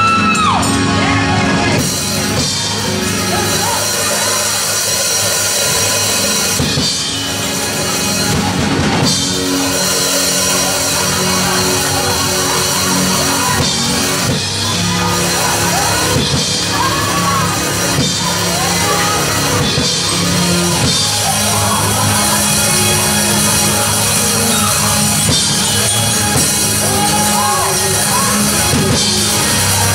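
Live church band music: a drum kit and keyboard playing loudly and without a break.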